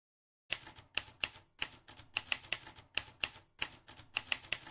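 Typewriter keys striking in an irregular run of sharp clicks, about three or four a second, starting about half a second in.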